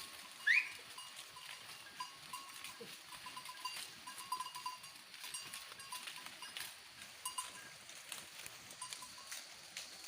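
Goats grazing: one short rising bleat about half a second in, then faint clinks, like a small bell, repeating irregularly with light rustling.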